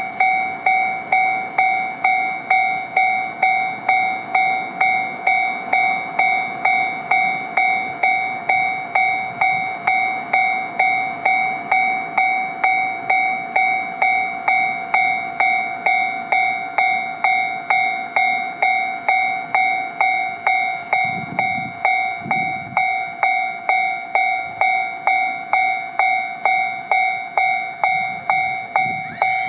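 Japanese railway level-crossing warning bell ringing steadily, a bright metallic ding repeating about twice a second.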